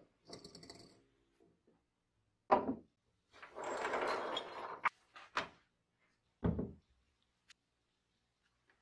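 Steel parts of a vintage 3M Scotch M-96 tape dispenser being handled on a wooden workbench during reassembly: a brief metallic ringing rattle near the start, a sharp knock of metal set down on wood, a scraping slide of about a second ending in clicks, then another knock and a light tick.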